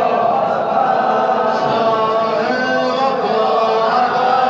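A group of young men chanting a noha, a Shia mourning lament, together in unison without instruments.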